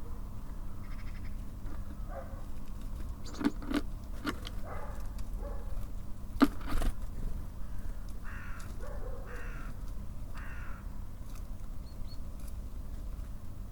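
Birds at a feeder: a few sharp knocks, then a run of short, harsh rasping calls from a corvid, most likely a magpie, over a steady low rumble.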